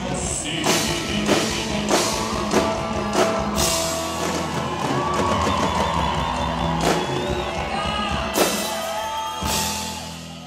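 Live sertanejo band music with drum kit hits about every half second early on and the duo singing over it; the music fades out near the end.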